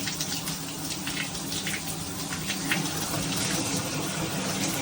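Water running steadily from a VXV dual filtered shower head, with a faint low steady hum underneath.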